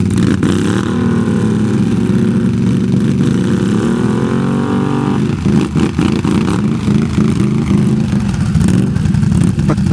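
ATV engines running while a stuck Can-Am Renegade 800 is winched and pulled free of the mud. A whine under load rises and then levels off during the first five seconds and stops about five seconds in.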